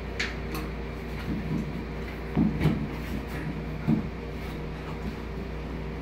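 Four-prong range receptacle on its metal cover plate knocking and scraping against a metal outlet box as it is handled into the wall opening, a handful of short clatters, loudest about two and a half seconds in. A steady low hum runs underneath.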